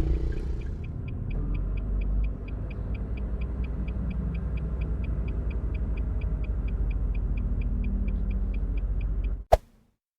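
A car's electronic beeper sounding short, even beeps at about four a second over the low rumble of the running car, stopping with a click shortly before the end, followed by sudden silence.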